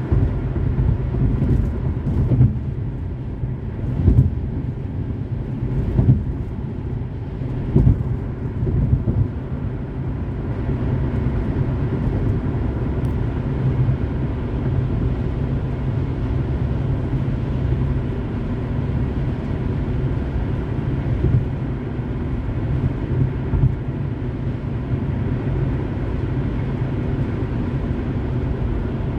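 Car driving at highway speed: a steady low road and tyre rumble, with a few sharp thumps about two seconds apart in the first eight seconds.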